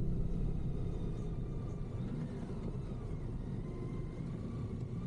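Low, steady rumble of a BMW K1600 GTL motorcycle's inline-six engine and road noise while riding. It eases down over the first couple of seconds, and a faint falling pitch shows about two seconds in.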